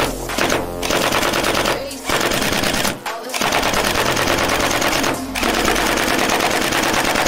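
ARP9 gel blaster with blowback firing on full auto: a fast, loud rattle in four long bursts, broken by short pauses about two, three and five seconds in.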